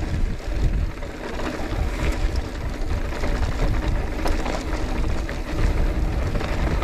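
Wind rumbling and buffeting on the microphone of a moving bicycle, with a steady low road noise underneath.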